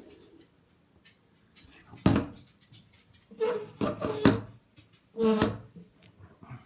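Handling knocks and rubs from a small quadcopter frame being picked up and turned over by hand: one sharp knock about two seconds in, then several louder short bursts.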